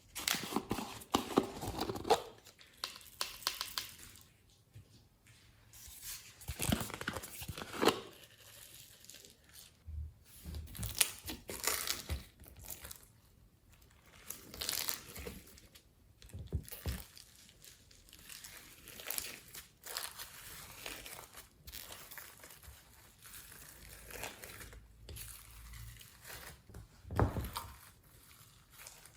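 Glossy slime being kneaded and stretched by hand, with irregular crackling, popping and crinkling in clusters separated by short pauses.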